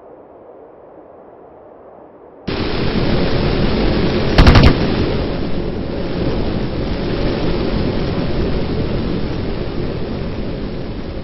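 Added spacecraft sound effect: a loud rushing roar cuts in abruptly a couple of seconds in, with a short, much louder blast about two seconds later, then a steady rushing rumble.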